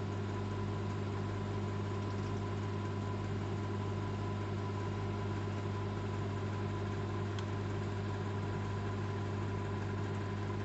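Old microwave oven running with a steady, even hum while it heats a food package.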